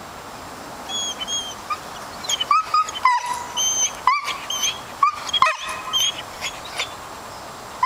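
Dog whining in many short, high cries that bend up and down in pitch, starting about a second in, as it looks up at a squirrel it is hunting.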